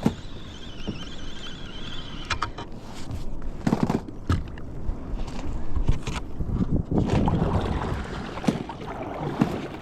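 Sea water sloshing and slapping against the hull of a fishing ski (sit-on-top kayak), with irregular knocks and splashes.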